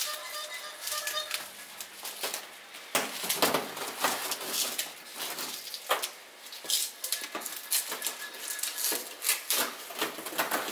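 Scissors snipping through hard strips of pulled white sugar candy, the cut pieces clicking as they drop onto a stainless-steel tray: irregular sharp snips and clicks, roughly two a second.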